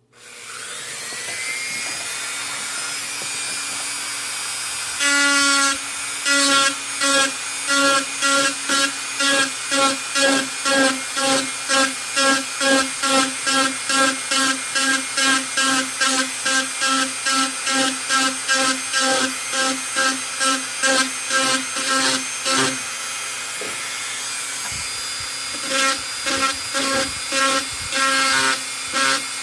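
Handheld rotary tool starting and spinning up to a steady whine. From about five seconds in, its pitch pulses about twice a second as the bit is pressed in again and again to cut dimples into a knife handle. The pulsing pauses briefly near the end, then starts again.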